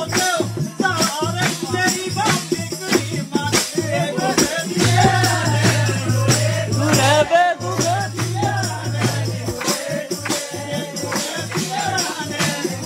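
Pahari folk music for a jhuri/nati dance: a voice singing a wavering melody over a steady, quick percussion beat, with a low note held for a few seconds in the middle.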